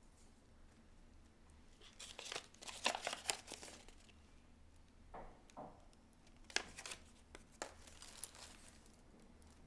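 Thin plastic bag crinkling and crackling in irregular bursts as hands open it, loudest about three seconds in, with lined notebook paper being unfolded near the end.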